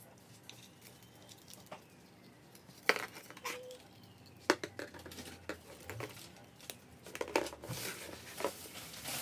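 Hollow plastic Easter eggs clicking and clacking as they are handled, a green egg's two halves pressed shut and the egg set down on a table. Scattered sharp plastic clicks, with a quick cluster near the end.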